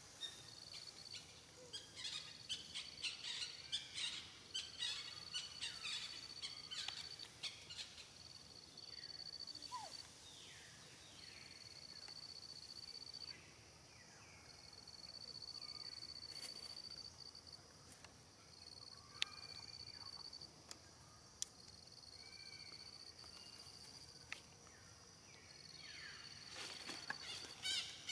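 Faint forest ambience. An insect keeps up a steady high-pitched trill in stretches of a few seconds, with birds calling in short falling notes. Scattered crackling clicks fill the first several seconds.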